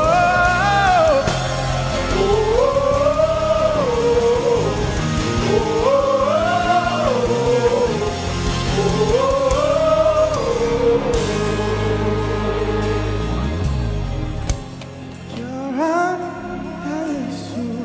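Live gospel worship music: a smooth lead melody in long rising and falling phrases over sustained band accompaniment. About fourteen and a half seconds in, the bass drops out and it gets softer before the melody comes back.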